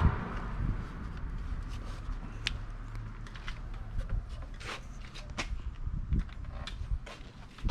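Scattered light clicks and taps of plastic parts being handled as a replacement side mirror assembly is fitted to a car door, over a low steady background hum.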